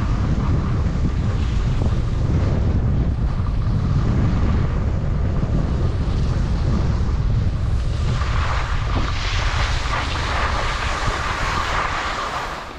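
Wind rumbling and buffeting on the microphone of a moving skier, with the hiss of skis sliding on snow, which grows louder about two-thirds of the way through and drops away near the end.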